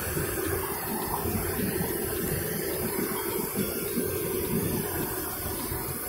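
Steady rushing roar of Tamda Ghumar waterfall, with uneven low rumbling on the phone's microphone.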